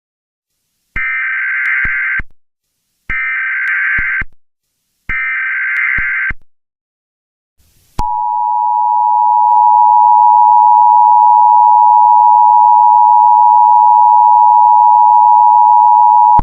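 Emergency Alert System tones: three bursts of SAME digital header data, about a second each and two seconds apart, then about eight seconds in the long steady EAS two-tone attention signal. Together they mark the start of an emergency alert broadcast.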